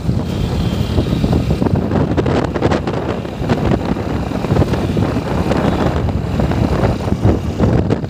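Loud, gusty wind buffeting the microphone over the steady rumble of engine and tyres from a vehicle driving along a paved road.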